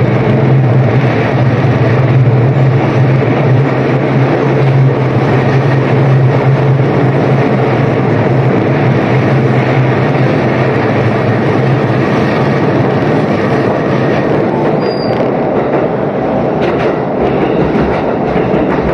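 Electric commuter train running, heard from inside the passenger car: a steady rush of wheels on rails with a low hum that drops away about two-thirds of the way through.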